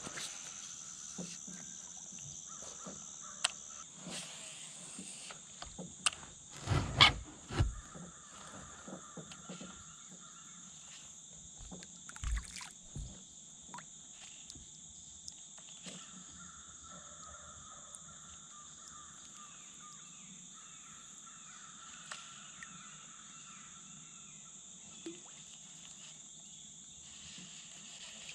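Quiet pond-side morning ambience: a steady high-pitched insect drone with bird calls now and then. Scattered clicks and knocks come from handling a baitcasting rod and reel in a plastic kayak, the loudest a knock about seven seconds in.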